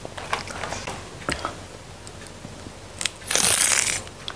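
Close-up chewing and biting of raw vegetable stalks, with small crisp crunches, then a louder rasping burst about three seconds in.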